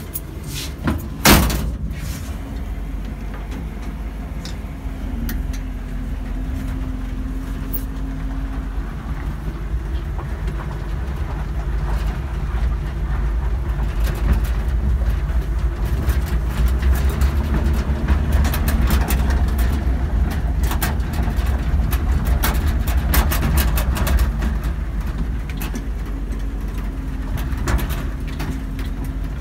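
A cab door shuts with a sharp knock about a second in, then the engine of a 1946 Ford truck built on a 2000 Mercury Mountaineer chassis runs steadily as the truck pulls away and drives, heard from inside the cab. The engine grows louder over the first half, with small clicks and rattles through the middle.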